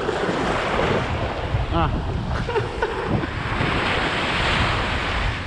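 Small waves washing up on a sandy beach, with wind buffeting the microphone as a steady rumble underneath.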